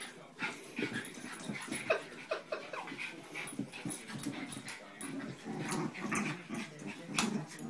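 Two small dogs play-wrestling, with a continuous play growl and a few short whines about two seconds in.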